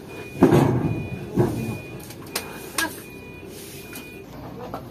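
Heavy steel leaf-spring pack of a truck's tandem being shifted by hand and set onto the axle's spring seat: a loud metal clunk about half a second in, then a few lighter knocks.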